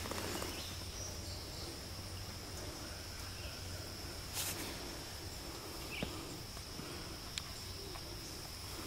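Outdoor ambience with an insect's steady high-pitched trill running throughout, and a few faint clicks from handling.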